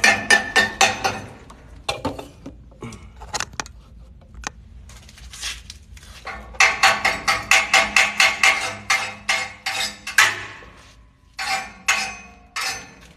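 Chipping hammer striking a flux-core fillet weld to knock off the slag: sharp metallic clinks in quick runs of about four strikes a second, with scattered single taps between.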